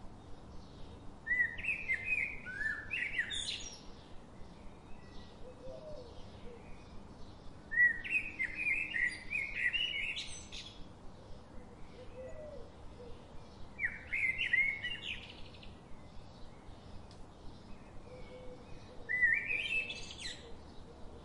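A songbird singing a short, quick warbling phrase four times, roughly every six seconds. A faint, even ticking about three times a second runs underneath.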